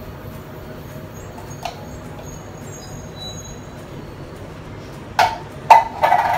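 A metal tin can being set down on a countertop: a few sharp metallic clinks and a short ringing clank near the end, over a low steady hum.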